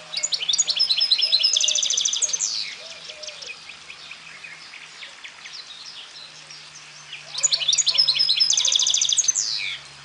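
Goldfinch × canary hybrid singing two loud bursts of song, each about two and a half seconds long, made of rapid high trills and ending in a falling note. The first begins at once and the second about seven seconds in, with softer twittering between them.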